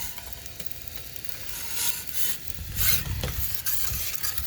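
Wood fire burning in an Ooni Karu 16 pizza oven, a steady hiss and crackle, with two louder rushing surges about two and three seconds in. Wind rumbles on the microphone underneath.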